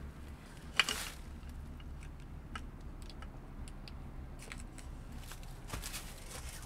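A person moving about beside a camp cot and handling bedding: scattered light clicks and short fabric rustles, with one sharp click about a second in, over a steady low hum.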